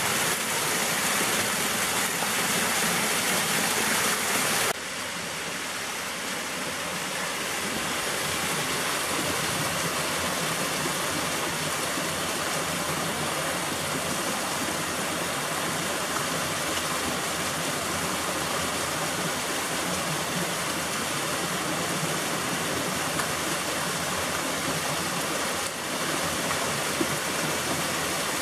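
Small waterfall splashing into a rock pool: a steady rushing splash. About five seconds in it cuts suddenly to a slightly quieter, duller rush of the stream cascading down a narrow rocky gorge.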